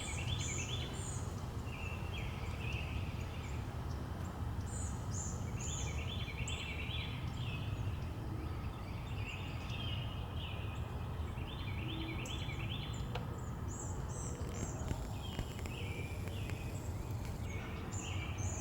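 Songbirds singing short, rapid phrases of high notes, repeated every few seconds, over a steady low outdoor rumble.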